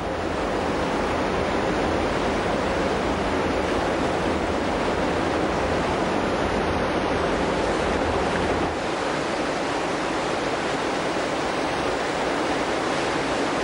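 Trümmelbach Falls: glacial meltwater rushing down through caverns worn in the rock, a steady rush of falling water.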